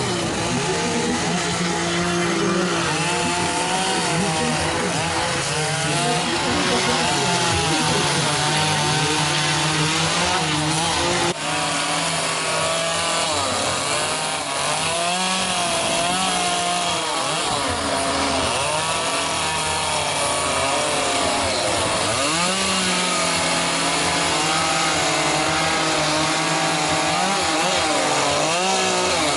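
Chainsaw carving wood, running continuously with its engine pitch rising and falling as the cutting load and throttle change.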